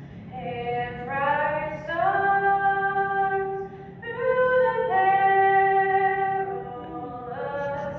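A woman singing solo and unaccompanied, a slow melody of long held notes.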